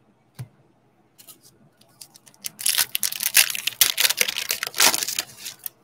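Foil trading-card pack wrapper being torn open and crinkled: a few small clicks, then from about two and a half seconds in a dense, bright crackle of rustling foil that stops just before the end.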